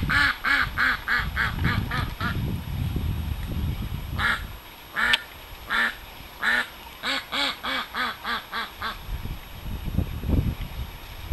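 Indian Runner duck quacking loudly in fast runs of about four quacks a second, with a few single quacks spaced between the runs: a complaining call.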